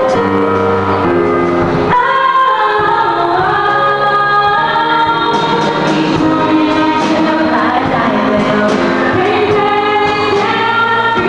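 A choir of teenagers sings held chords; about two seconds in, a girl's amplified solo voice comes in above them, carrying a melody that moves in pitch.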